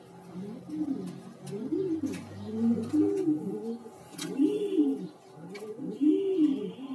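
Domestic pigeons cooing, several birds overlapping in a steady run of low coos, each rising and falling in pitch.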